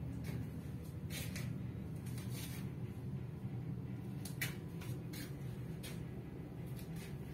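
Steady low machinery hum throughout, with scattered faint rustles and clicks from handling in the enclosed space.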